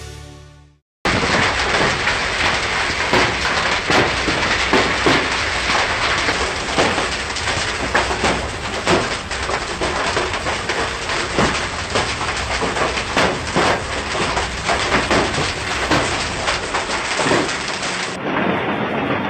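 Heavy rainstorm: a loud, dense rushing hiss dotted with many sharp knocks of striking drops, starting abruptly about a second in. Near the end it cuts to a duller recording of the same kind of downpour.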